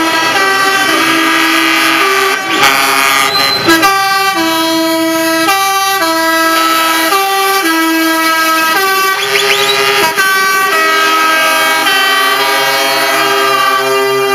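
Multi-note musical truck horn playing a tune, its pitch stepping from note to note every half second or so, with a couple of short noisy bursts around three seconds in.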